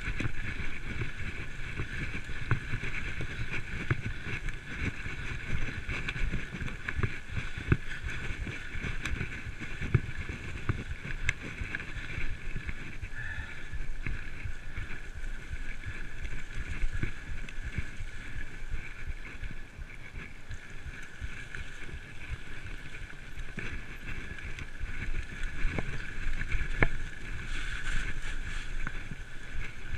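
Full-suspension mountain bike riding fast downhill over a leaf-covered dirt trail: a constant rough rumble of the tyres and frame over the bumpy ground, with scattered sharp knocks, wind buffeting the microphone, and a steady high buzz over it all.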